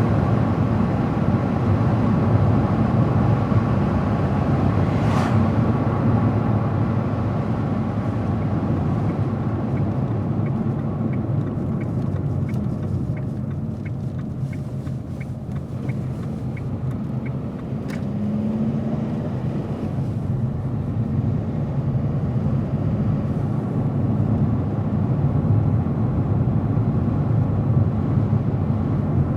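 Car driving at road speed: a steady, low rumble of tyres and engine. Around the middle, a faint, regular ticking runs for several seconds at about two ticks a second.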